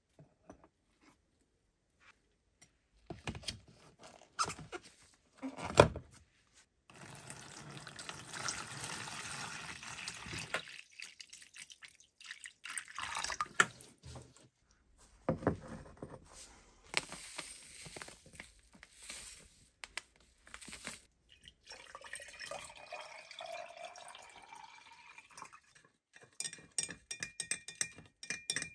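Water poured into a plastic tub, with splashing and dripping as it fills, among scattered handling knocks. Near the end, a metal rod stirs and clicks against the inside of a glass jar of liquid.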